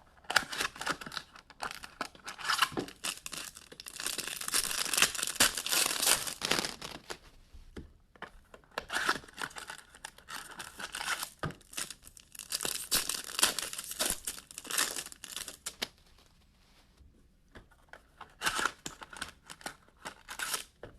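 Trading card box packaging being torn open and crinkled by hand, in irregular crackling bursts, with a quiet pause about two-thirds of the way through.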